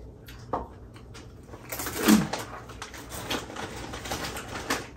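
Close-up chewing of a crunchy mouthful, a dense run of rapid crunches starting about two seconds in, with a single click shortly before.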